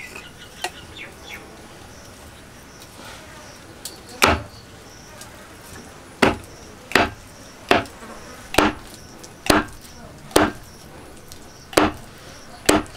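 A heavy knife chopping pieces of a large goonch catfish on a wooden log chopping block. About nine sharp chops, starting about four seconds in and coming roughly once a second.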